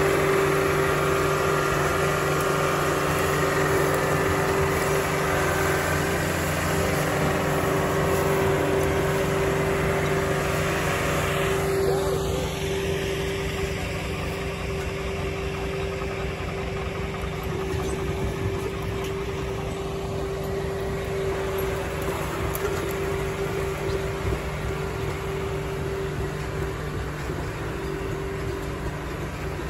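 Engine of a remote-controlled tracked house tug running steadily under load as it moves a doublewide mobile home, getting somewhat quieter about halfway through. A short falling whistle is heard about twelve seconds in.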